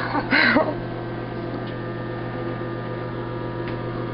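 Microwave oven running with a steady electrical hum while heating a bar of soap that has not yet begun to expand. A brief voice sounds just after the start.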